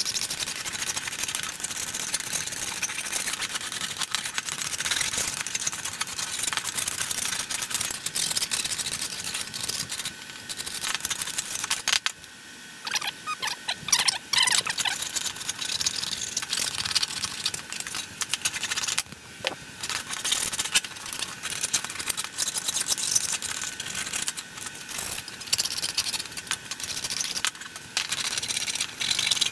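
Hand file scraping along the cut edges of thin aluminium sheet in rapid repeated strokes, deburring the edges, with a short pause about twelve seconds in.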